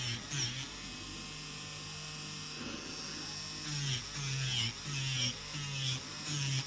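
Electric nail drill (e-file) with a ceramic drill bit running with a steady hum, its note dipping in short repeated strokes, about two a second, as the bit is worked against the acrylic nail at the cuticle; in the middle it runs steadily for about three seconds.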